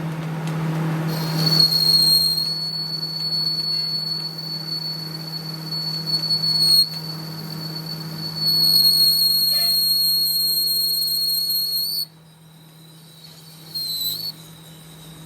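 Workshop machining: a steady, high-pitched whistle-like squeal over a steady low machine hum. The squeal stops and starts again twice, and a short burst comes near the end.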